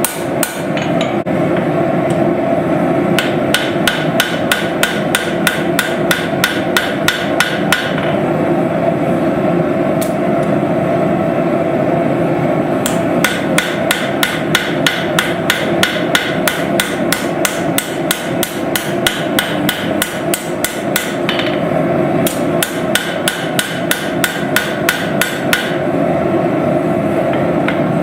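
Hammer blows on hot steel at the anvil while forging a knife, in runs of about three evenly spaced strikes a second with short pauses between runs, over a steady background roar.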